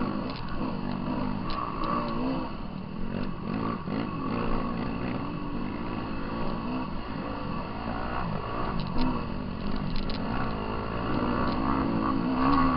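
Off-road dirt bike engines revving up and down without a break, with scattered light ticks and rattles.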